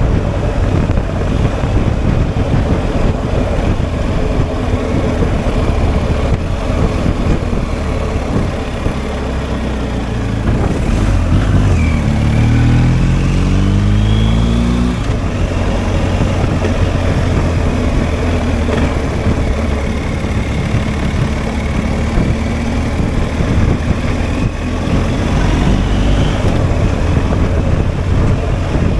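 BMW R1250 GS Adventure's 1254 cc boxer twin running under way, with a steady rush of noise over the low engine note. About twelve seconds in the revs climb for a few seconds as the bike accelerates.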